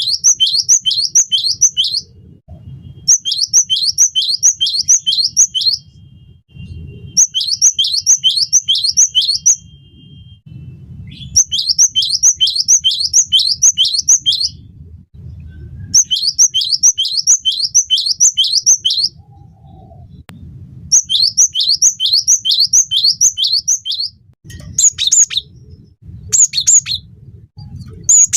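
Cinereous tit (gelatik batu) singing loudly. Repeated phrases of six or seven quick, high, falling notes, each phrase lasting about two seconds with short pauses between. Near the end the song breaks into shorter, choppier bursts.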